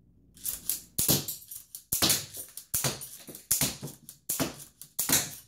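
K'nex TR8 rubber-band gun firing yellow K'nex rods in quick succession. Each shot is a sharp clack from the band-driven firing pin, just over one a second.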